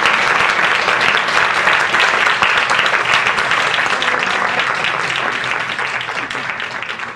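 Audience applauding: dense, steady clapping from a large crowd that slowly fades toward the end.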